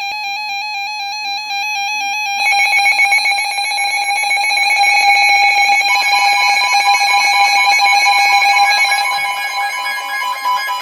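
Emergency Alert System alert tones signalling a tornado warning: a buzzy electronic tone warbling rapidly between two pitches, joined about two and a half seconds in by a second, rapidly pulsing tone, with a steady higher tone added about six seconds in.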